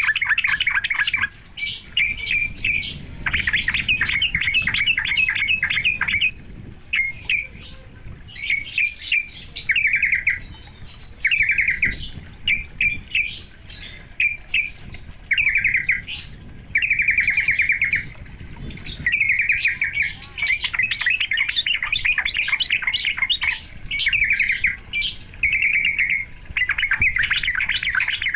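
Yellow-vented bulbul (trucuk) singing: bursts of fast, chattering repeated notes, phrase after phrase with short pauses between. This is a provoking song meant to rile a trucuk into answering.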